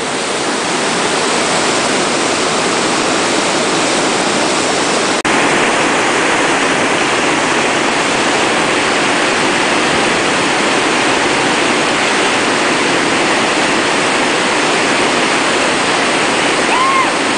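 Whitewater river rapids rushing, a loud steady wash of churning water, with a brief dip about five seconds in.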